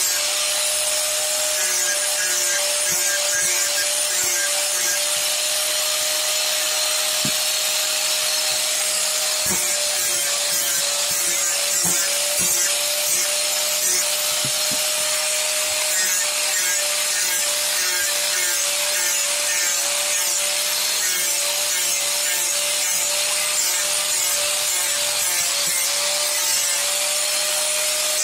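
Electric angle grinder running steadily and grinding wood: a constant high motor whine over the hiss of the disc working the wood surface.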